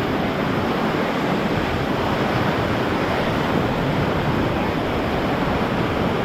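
Whitewater of the Ocoee River rushing steadily around a raft, an even wash of water noise with no breaks.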